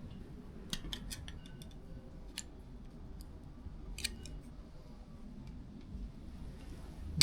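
Scattered small metallic clicks and light taps, a few with a brief ring, as the metal tabs of a keypad lock's parts are bent by hand and the lock is handled. A cluster of clicks comes about a second in, with single ones at about two and a half and four seconds.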